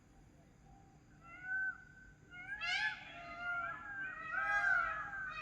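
Several overlapping meow-like animal cries, each a short call that rises and falls in pitch, starting about a second in and growing louder and more frequent.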